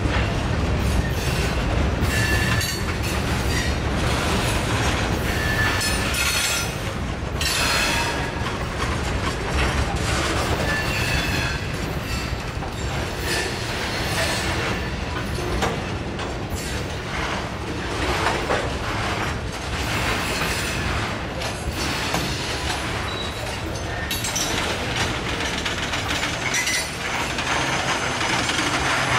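Freight train of loaded open hopper cars rolling past at close range: steady rumble of steel wheels on rail, with repeated clacks as wheels cross rail joints and a few brief high wheel squeals.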